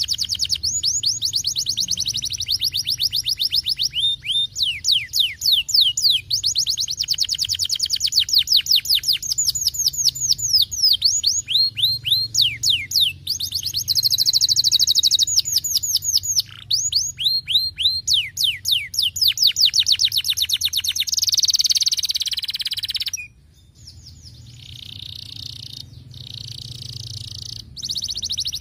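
A domestic canary singing a long, continuous song of fast trills: runs of rapid downward-sweeping whistled notes, several a second, alternating with buzzier, faster rolls. The song briefly cuts out near the end, then resumes more softly.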